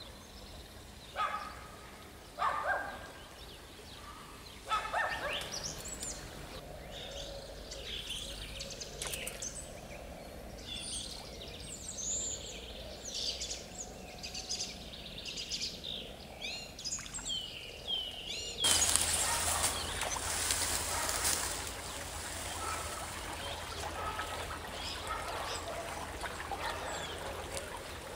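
Small birds chirping, with many short high calls, and three brief louder sounds in the first five seconds. About two-thirds of the way through, the sound switches abruptly to a steady rushing hiss of flowing stream water.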